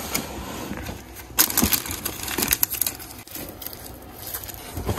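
A hand rummaging through a plastic storage drawer full of small craft items: irregular rustling and crinkling with light clattering knocks, the sharpest about a second and a half in.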